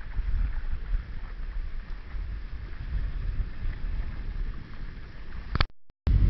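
Wind buffeting the microphone over the rush of water past the hull of a Hurricane 5.9 sailing catamaran moving at speed. The sound cuts out for a moment near the end, then comes back louder.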